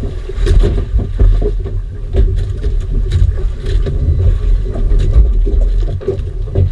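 Motorized outrigger fishing boat at sea: a steady low rumble of the boat running, with irregular knocks and splashes of water against the hull.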